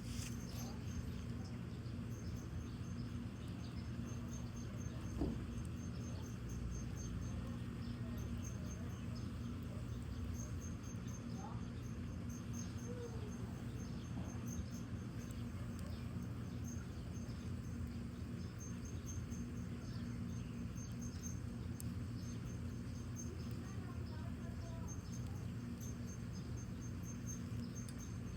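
Crickets chirping in a steady pulsing trill over a low steady rumble, with faint scattered ticks and one louder pop about five seconds in.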